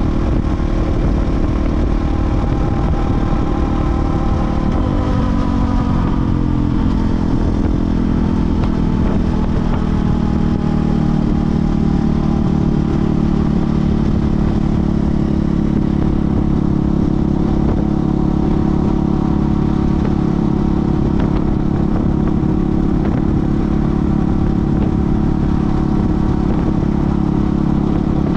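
KTM 450 EXC's single-cylinder four-stroke engine running under way; its revs drop about five seconds in, then hold steady.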